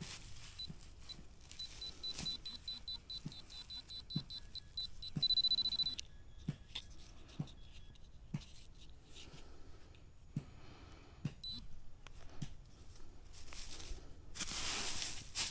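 Metal detector beeping with a high tone, the beeps coming faster and faster until they run together into one steady tone about five seconds in: the sign that it is closing in on a metal target. Soft knocks about once a second, and a rustle near the end.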